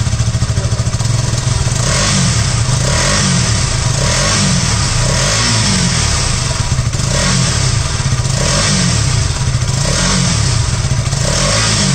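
KTM Duke 200 BS6's 199 cc single-cylinder engine running loudly through its underbelly exhaust, revved again and again in short throttle blips that rise and fall in pitch.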